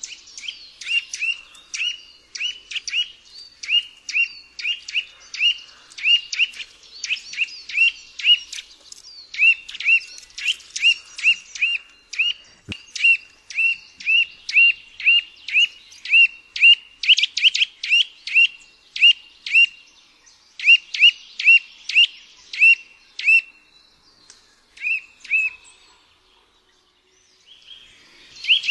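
Eurasian nuthatch calling: a long series of short, clear notes, about two a second, with fainter higher chirps above them. The series thins out and pauses briefly near the end, then picks up again.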